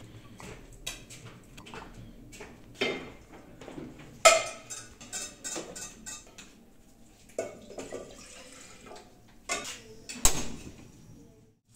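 Steel kitchenware clattering: a stainless steel saucepan and steel ladle being handled and set on a gas stove, a string of knocks and clinks. The loudest comes about four seconds in with a brief metallic ring, and another sharp clank comes near the end.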